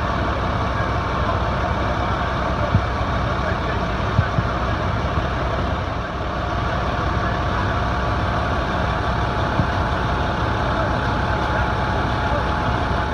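Aerial ladder fire truck's engine running steadily, with a steady high whine over the engine drone and a few small clicks.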